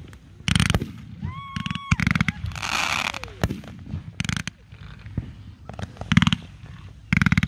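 Fireworks display: a volley of aerial bursts, about five short clusters of rapid crackling pops, with a longer hissing crackle about three seconds in.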